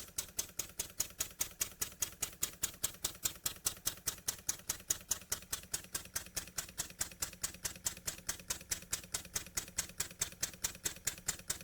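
Jowitt Major poppet-valve model steam engine running steadily on compressed air, making a fast, even train of clicking exhaust beats several times a second. Its cam timing has been newly set.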